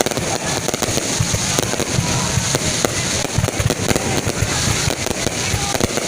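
Fireworks display going off: a dense, continuous run of rapid overlapping bangs and pops.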